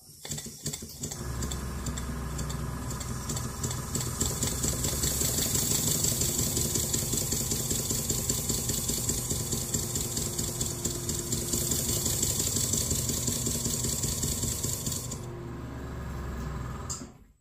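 Holzapfel CH110 twin-cylinder model marine steam engine running on compressed air: a fast, steady chuffing of exhaust with mechanical clatter that builds up over the first couple of seconds. About two seconds before the end the hiss of the air cuts off, and the engine slows and stops.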